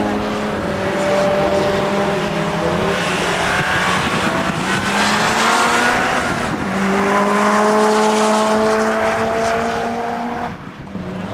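Subaru Impreza's flat-four engine accelerating hard, its pitch climbing through a gear. It drops back at a gear change about six and a half seconds in, climbs again, then falls away sharply near the end.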